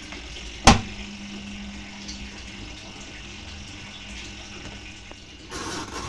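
Von VALW-07MLB twin-tub washing machine on its spin cycle, the drum spinning water out of the clothes. A sharp knock comes about half a second in, then a steady motor hum sets in along with the sound of draining water. A short burst of noise comes near the end.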